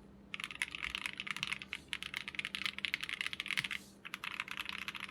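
MW65 mechanical keyboard being typed on fast in a typing test: a dense, even patter of keystrokes. It starts about a third of a second in and breaks off briefly near the end before carrying on.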